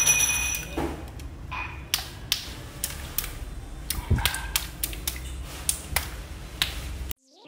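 Water balloons bursting under a shoe on concrete: an irregular series of sharp pops with splashes of water. It stops abruptly near the end.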